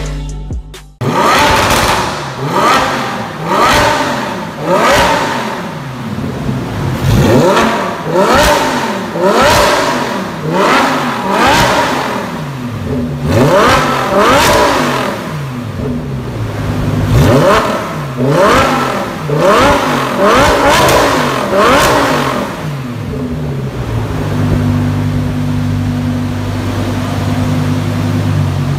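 Lamborghini Huracan EVO's V10 engine through an Fi Exhaust valvetronic catback with the valves open, blipped in a long series of quick free revs, each pitch rising and falling. It settles into a steady idle for the last few seconds.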